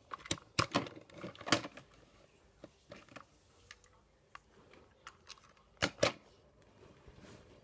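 Plastic Trackmaster Duke toy engine handled and set down on a wooden table: scattered clicks and knocks, with two sharp clacks close together about six seconds in.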